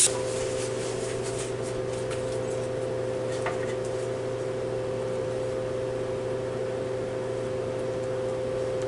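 Ninja countertop oven running with a steady hum, with one faint click about three and a half seconds in.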